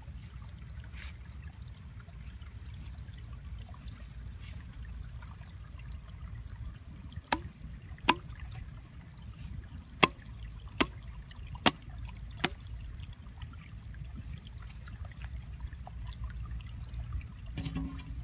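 Water trickling and sloshing over a steady low rumble, with six sharp clicks or knocks in the middle of the stretch.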